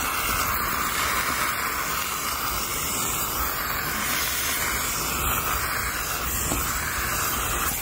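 Steam cleaner wand spraying a steady hiss of steam onto a newly installed convertible top, to shrink the loose top and tighten out its wrinkles. The hiss cuts off near the end.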